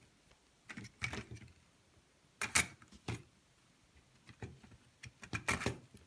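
Hard plastic parts of an opened FireAngel smoke alarm being handled: a string of irregular clicks and knocks, the loudest about two and a half seconds in and a quick cluster near the end.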